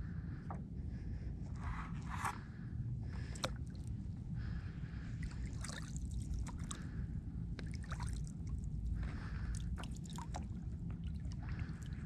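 Water sloshing and dripping close to the microphone, with small irregular splashes, over a steady low rumble from wind and movement on the microphone.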